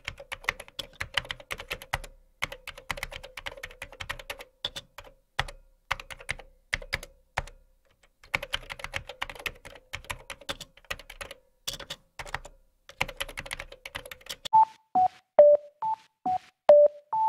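Fast computer-keyboard typing clicks in bursts with short pauses, used as a sound effect. From about fourteen and a half seconds a run of short electronic beeps takes over, about two a second, stepping between a few pitches.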